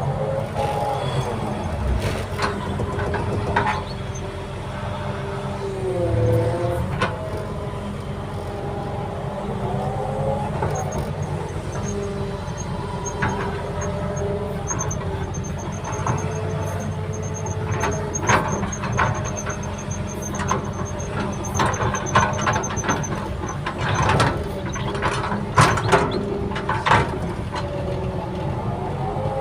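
Heavy earthmoving machine running steadily under load, its whining tone rising and falling as it works, with sharp clanks and knocks, most of them in the second half.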